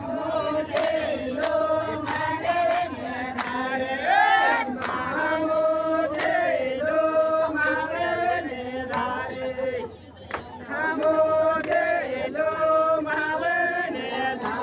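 Singing of an Adivasi garba dance song, the voices holding drawn-out chanted notes over a sharp beat struck about every two-thirds of a second. The music drops away briefly about ten seconds in, then picks up again.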